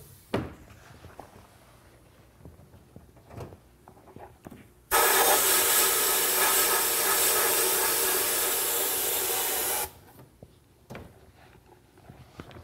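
The lid of a blast cabinet knocks shut. About five seconds later the sandblasting gun with its ceramic nozzle fires a burst of compressed air and glass beads: a loud, steady hiss lasting about five seconds that cuts off suddenly. A few light knocks come before and after the burst.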